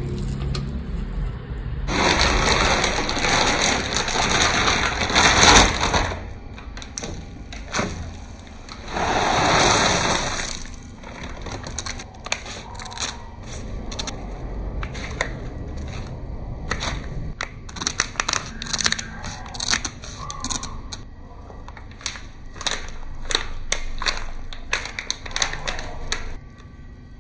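Kitchen sounds of Maggi instant noodles being cooked in a pan on a gas stove: two spells of steady hissing, then a long run of small taps, clicks and rustles.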